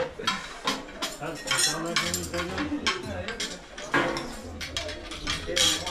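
Plates, dishes and metal cutlery clinking and clattering in many short, irregular knocks as a meal is served, with people talking in the background.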